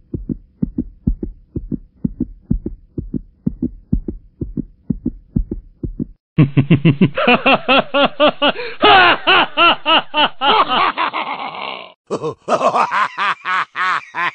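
Background music: a steady low beat, then from about six seconds in a louder section with pitched melodic notes over a regular pulse, which changes again about twelve seconds in.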